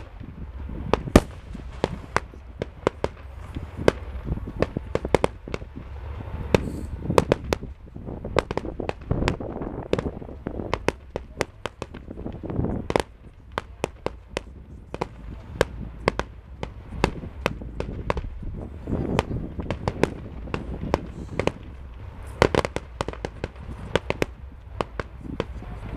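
Fireworks display: a rapid, irregular string of sharp bangs and cracks, several a second, from bursting aerial shells and low-level firework effects, over a steady low rumble.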